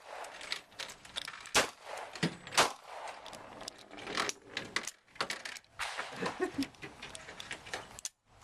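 Two sharp gunshots about a second apart, amid a run of small metallic clicks and rattles from handling the gun.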